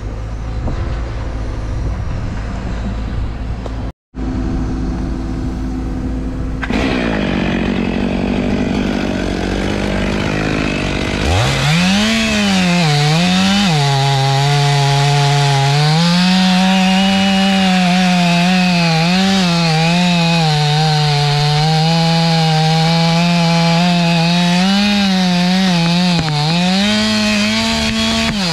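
Stihl chainsaw revving up to full throttle about eleven seconds in and cutting into the trunk of a big poplar. Its engine pitch sags and recovers again and again as the chain bites into the wood.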